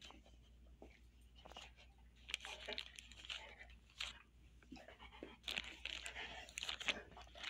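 A dog chewing a dried beef chew: irregular crunches, cracks and tearing, sparse at first and coming thick and fast from about two seconds in.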